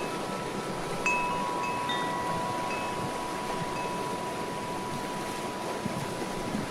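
Wind chime ringing in the wind: a couple of fresh strikes about one and two seconds in, with one tone ringing on throughout, over a steady rush of wind on the microphone.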